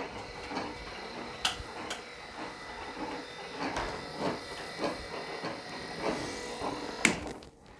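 Electric rotating-mirror mechanisms of Elektra LBO rotator warning beacons running with a steady whirr and soft knocks recurring roughly every half second. A sharp click comes about seven seconds in, after which the sound drops away.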